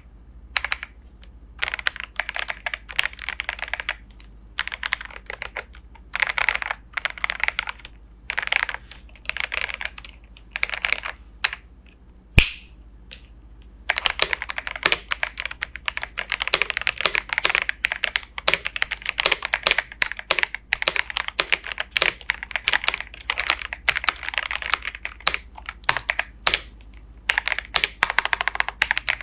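Typing on an Ajazz AK820 MAX 75% mechanical keyboard: bursts of quick keystrokes with short gaps, then one sharp single click near the middle, followed by steady fast typing to the end.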